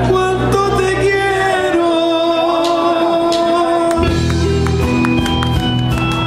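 Live band playing with singing over guitars, congas and drums. The low bass part drops out about two seconds in and comes back about four seconds in.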